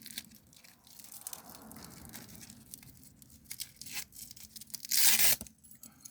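A Velcro (hook-and-loop) strap ripped apart once, a loud half-second rip about five seconds in, after a few seconds of quiet handling rustle and small clicks.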